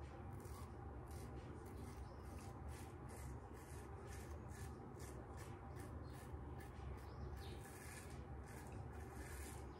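Inoue Tosuke kamisori, a Japanese straight razor, scraping stubble through shaving lather in short, faint strokes, about two or three a second.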